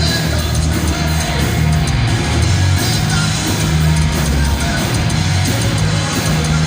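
Heavy metal band playing live, loud and steady: distorted electric guitars, bass and drum kit, heard through an audience recording.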